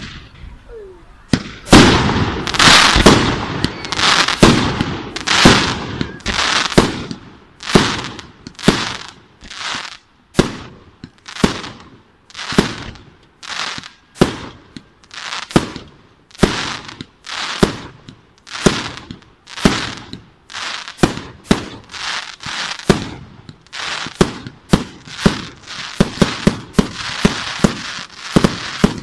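Firework display: aerial shells bursting one after another, loud bangs about once a second, each fading away quickly. Near the end the bursts come faster, several a second.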